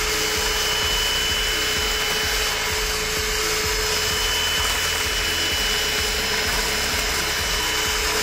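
Electric hand mixer running at a steady speed, its twin beaters whipping eggs to a froth: a constant motor whir with a steady whine over it.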